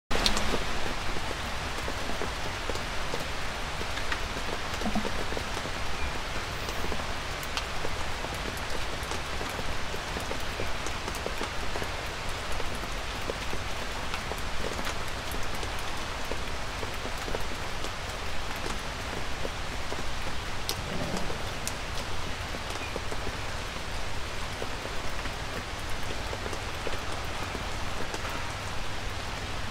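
Light rain falling steadily in woods: an even patter with scattered individual drops ticking.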